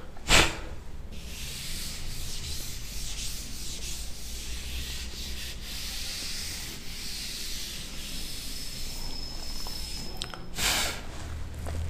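Felt chalkboard duster wiping across a chalkboard: a steady hissing rub for most of the time, with a sharp knock just after the start and another near the end.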